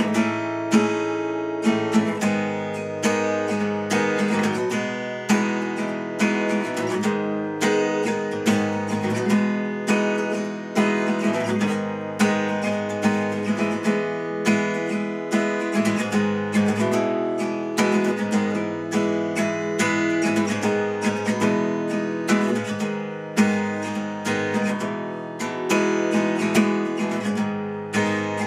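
Cort L100C acoustic guitar played solo with a capo, chords picked in a steady, busy rhythm of many notes a second, with no singing.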